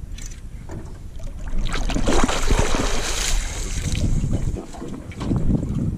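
Hooked queenfish splashing at the surface as it is lifted from the water, a loud rush of splashing for a second or two from about a second and a half in. Wind buffets the microphone throughout.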